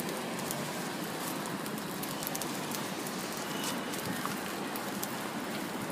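Thin pancakes sizzling on a hot flat griddle: a steady frying hiss with scattered small crackles.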